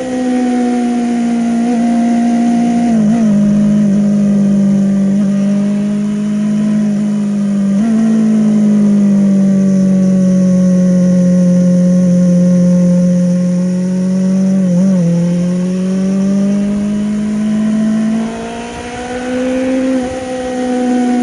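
Yamaha Fazer 600 inline-four motorcycle engine running at fairly high revs, its pitch drifting slowly down and back up, with brief dips in pitch about three, eight and fifteen seconds in and a drop in loudness then a rise in revs near the end.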